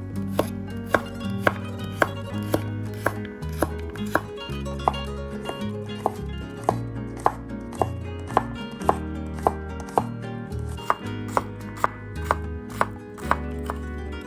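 Chef's knife dicing cucumber on a wooden cutting board: sharp knife-on-board knocks at a steady rhythm of about two a second.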